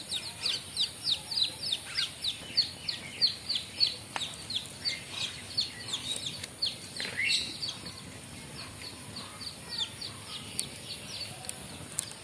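Bird peeping rapidly: a steady run of short, falling high-pitched peeps, three or four a second, with a few faint clicks and a steady high hiss underneath.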